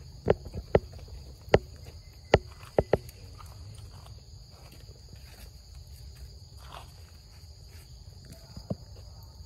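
A steady high drone of insects runs throughout. Over it come sharp clicks or knocks, six in the first three seconds, the loudest sounds present, and one more near the end.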